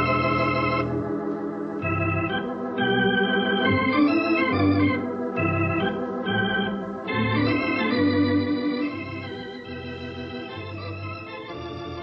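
Organ music cue bridging two scenes of a radio drama: a run of held chords that change about every second, growing quieter about nine seconds in.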